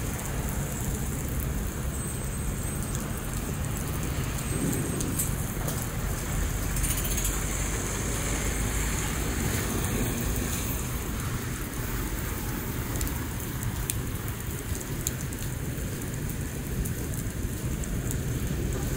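Heavy rain falling steadily onto flooded pavement, a dense, even hiss of drops on standing water.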